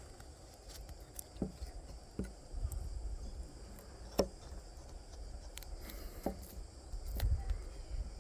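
Kizer Bugai knife carving a notch into hard pine: about five separate sharp cuts and knocks of the blade biting into the wood, a second or two apart.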